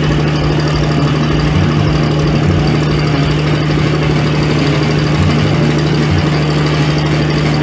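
A large engine idling steadily, one constant low drone that does not change in pitch or loudness.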